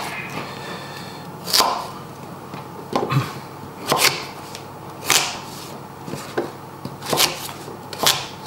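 Large kitchen knife chopping raw parsnip into chunks on a wooden chopping board, the blade knocking against the board about once a second.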